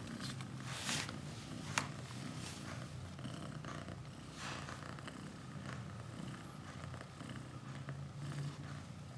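Mother cat purring steadily while her newborn kittens nurse, with a few soft brief noises and a sharp click about two seconds in.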